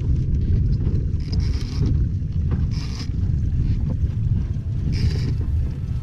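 Wind buffeting the microphone: a steady low rumble, with three brief higher hissing bursts about one, three and five seconds in.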